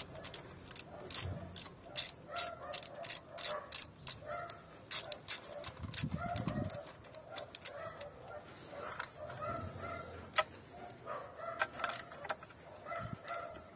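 Socket ratchet clicking in quick runs as a spark plug is turned through a long extension in the plug well. The runs are dense at first and thin out to scattered clicks in the second half.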